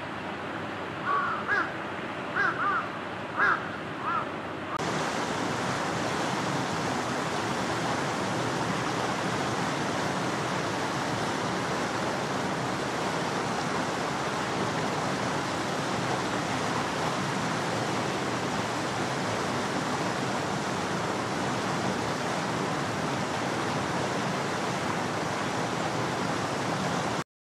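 A crow cawing about six times in quick succession over a steady outdoor background hiss. About five seconds in the sound switches abruptly to a louder, even rushing noise with no distinct events, which cuts off suddenly near the end.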